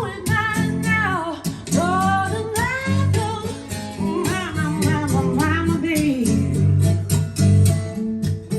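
Live recording of a female singer with acoustic guitar playing back: sung phrases with gliding pitch over steady strummed and plucked guitar.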